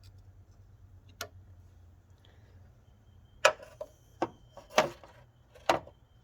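Hand tools clicking and knocking against metal while working radiator hose clamps: a few scattered sharp clicks, most of them in the second half.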